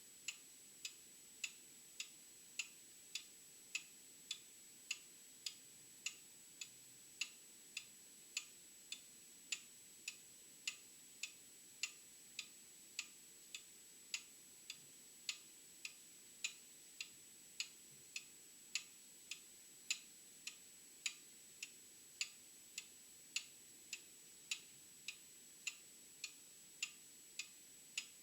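Old clock ticking steadily, with sharp, even ticks a little under two a second.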